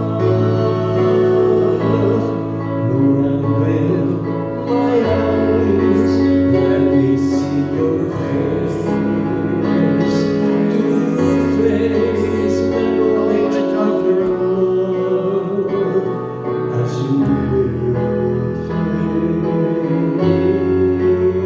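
Worship song with singing: held chords over a bass note that changes every couple of seconds.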